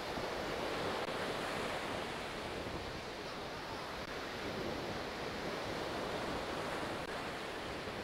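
Steady rush of sea surf on a sandy beach, with wind.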